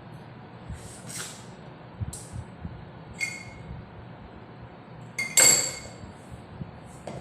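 Several short ringing clinks of hard objects, four or so, with the loudest about five seconds in.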